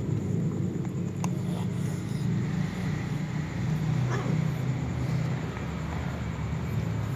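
A cat's low, continuous rumbling growl while it eats close to the microphone, with faint clicks of eating over it.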